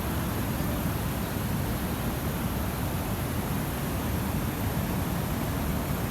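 Waterfall and river rapids: a steady, even rush of falling and fast-flowing water, heaviest in the low end.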